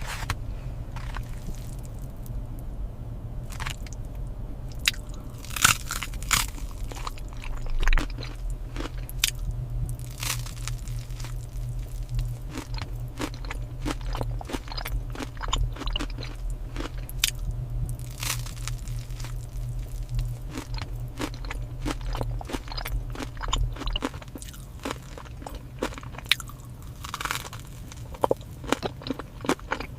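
Close-up crunching and chewing of crisp food, dense irregular bites and crunches throughout. A steady low hum sits underneath and stops near the end.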